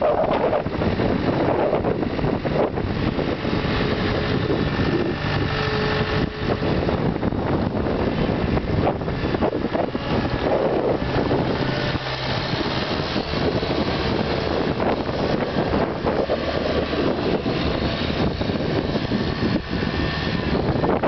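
Skid steer's diesel engine running steadily.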